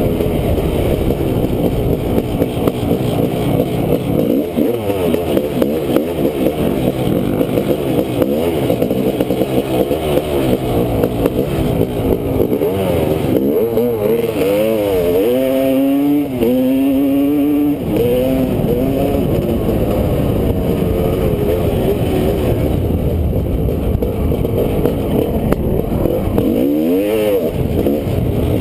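2001 Honda CR500 two-stroke dirt bike engine running hard under the rider, its pitch rising and falling again and again as it revs up and the throttle is rolled off. About halfway through, a second dirt bike is running close by and the revving swoops up and down more sharply.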